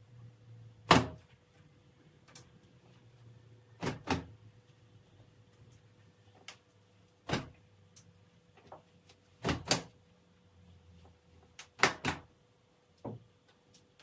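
Laundry being shaken out and hung on a metal clothes drying rack: about nine sharp snaps, several in quick pairs, the loudest about a second in.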